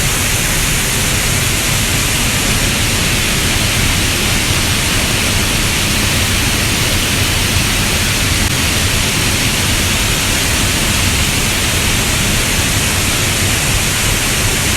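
Waterfall pouring close by: a loud, steady rush of falling water that fills the whole sound.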